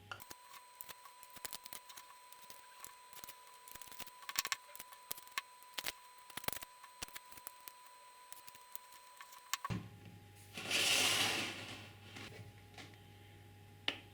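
Irregular light clicks and taps, like small parts being handled, over most of the stretch, then a loud hiss lasting about a second and a half, and one last click near the end.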